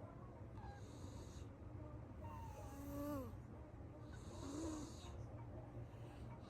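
A Siamese-like house cat snoring softly in its sleep: about three slow breaths, each a faint hiss. Two of them carry a short squeaky tone that bends up and down.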